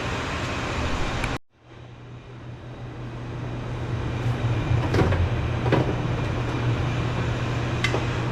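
Steady low mechanical hum, cut off abruptly about one and a half seconds in and fading back up over the next two seconds, with a few light clicks of parts being handled later on.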